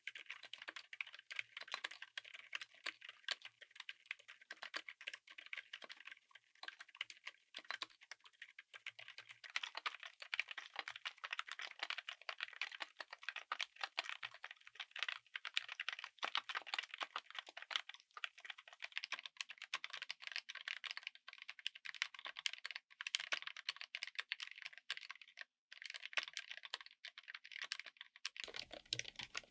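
Fast, continuous typing on a mechanical keyboard fitted with silent (dampened) switches: a dense stream of light, high-pitched key clicks. The sound changes abruptly about a third of the way in, again about two-thirds of the way in and once more near the end, as one take gives way to the next.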